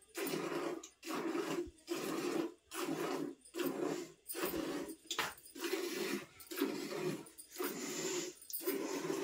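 Hand milking into a steel pail: rhythmic squirts of milk striking the pail, about three every two seconds, each a short spurt with a brief gap between.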